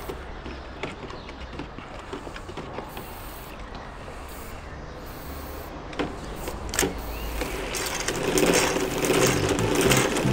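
Water pouring into a plastic spin-mop bucket from about eight seconds in, filling it with fresh water for a second rinse. Before that, light handling noise and a couple of knocks from the bucket.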